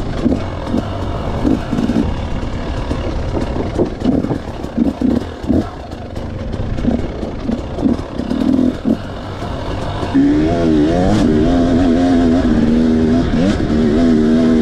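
Husqvarna TE300 two-stroke enduro engine being ridden, blipping on and off the throttle in short irregular bursts. From about ten seconds in it runs louder at held, steadier revs.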